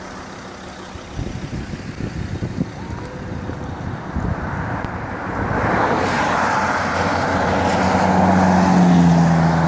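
A vehicle approaching on a wet, slushy highway. Tyre hiss swells from about halfway through, and a steady engine hum joins it and peaks near the end as a ute comes past.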